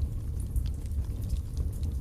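Wood fire burning in a fireplace: logs crackling with scattered sharp pops over a low steady rumble of the flames.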